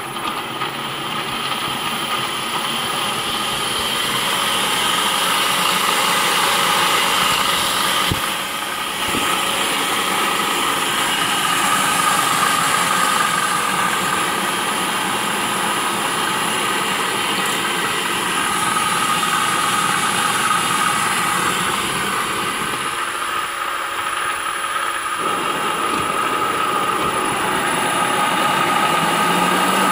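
Reconditioned Vauxhall Astra M32 six-speed gearbox being spun on the bench by a bolted-on electric motor, running steadily with a continuous whine from the gears and motor, during a test run after rebuilding. There is a brief dip about eight seconds in.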